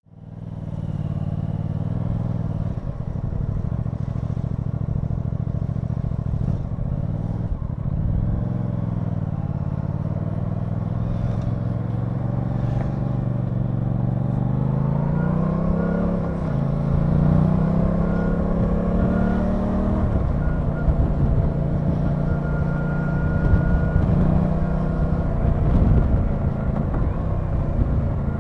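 Aprilia Tuono 660's parallel-twin engine heard from on the bike, pulling at low revs; just past halfway the revs climb, drop at a gear change, climb again and then hold steady.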